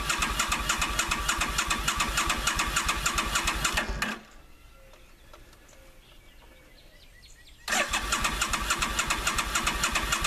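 Electric starter cranking a Suzuki Volusia's V-twin engine in two long bursts, each about four seconds, with a pause of about four seconds between. The engine turns over without firing: a cold start after sitting all winter, on a battery the rider fears is giving out.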